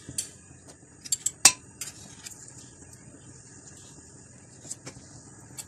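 Spoonfuls of lentil-and-gram-flour batter frying in oil in a karahi on a low flame, with a steady faint sizzle. A metal spoon clinks sharply against the pan a few times about a second in.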